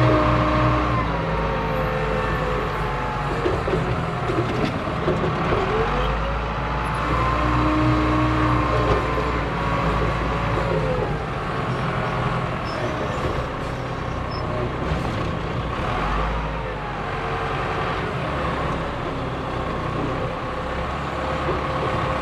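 Heavy diesel machinery running steadily, its pitch rising and falling several times as it works.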